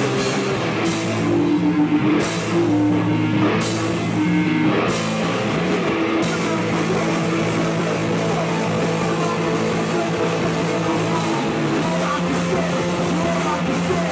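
Heavy rock band playing live: a distorted electric guitar riff over a drum kit. Crash cymbal hits land about every second and a half for the first six seconds, then the drums settle into steady playing with a constant cymbal wash.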